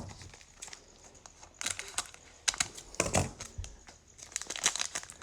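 Trading cards being handled and flipped through by hand: a scattered run of light clicks and rustles.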